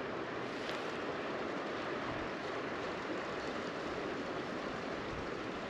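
Steady rush of flowing creek water mixed with wind buffeting the microphone.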